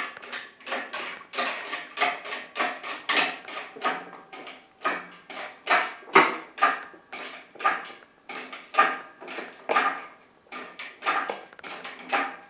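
Manual hoist being worked to lift a heavy engine-and-gearbox load off the floor: short metallic clinks in a steady rhythm of about two strokes a second.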